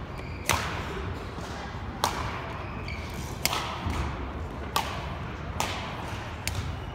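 Badminton rackets striking a shuttlecock in a rally: six sharp cracks about a second apart, the first the loudest, each echoing in a large hall.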